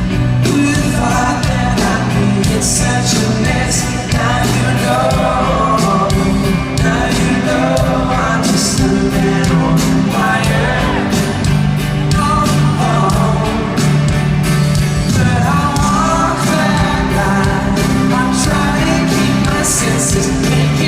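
Pop-rock band playing live in a concert hall, with a man singing the lead vocal over steady bass and drums and occasional cymbal crashes.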